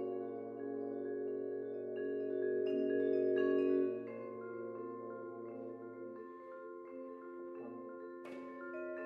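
Mallet keyboard percussion playing slow, long-ringing notes and chords in a contemporary trombone-and-percussion duet, growing softer about four seconds in, with a brief sharp noisy stroke near the end.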